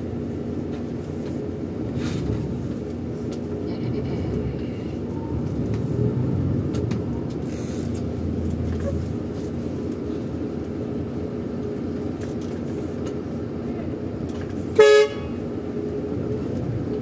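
King Long XMQ6871CY coach's engine and road noise heard from inside the cabin, a steady low rumble and hiss while under way. About fifteen seconds in, a horn gives one short, loud toot.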